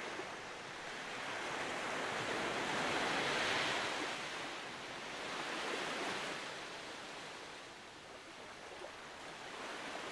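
Sea waves washing and surging, swelling to a peak about three and a half seconds in, again around six seconds, then easing off.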